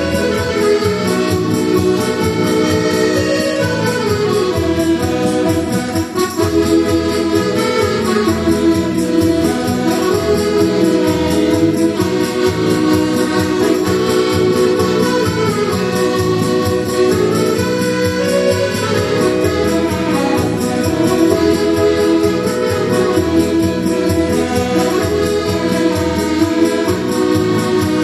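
Button accordion playing a lively Auvergne march, melody over a steady march beat in the bass.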